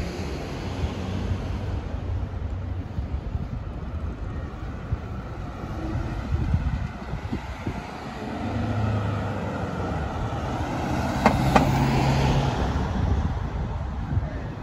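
Road traffic beside the street, with a vehicle passing that grows louder from about eight seconds in and peaks around twelve seconds. Two sharp clicks sound near the peak.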